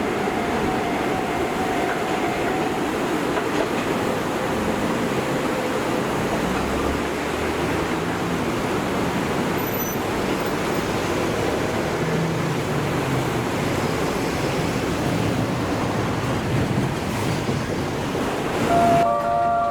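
Akechi Railway diesel railcar running on the track: a steady rumble and rail noise. Music comes in just before the end.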